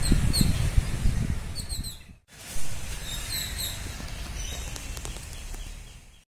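Small birds chirping outdoors, short high chirps coming in little clusters, over a low uneven rumble that is heaviest in the first two seconds. The sound breaks off briefly about two seconds in, then the chirping carries on over a lighter rumble.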